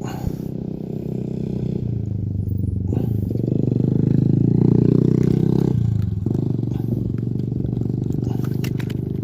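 Engine running with a deep steady drone. Its pitch and loudness step up about two and three seconds in and drop back about six seconds in, as if the engine were revved and then eased off.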